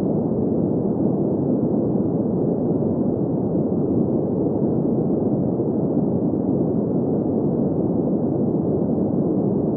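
Steady green noise: an even, unchanging hiss whose energy sits in the middle-low range, with nothing high and no events.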